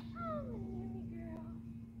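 Goat bleating softly: one thin call falling in pitch, then a couple of short fainter calls, over a steady low hum.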